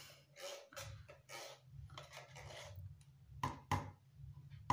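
Metal spoon scraping thick sweetened condensed milk out of a tin can into a plastic blender jar, in short rubbing strokes, with two sharp clicks about three and a half seconds in.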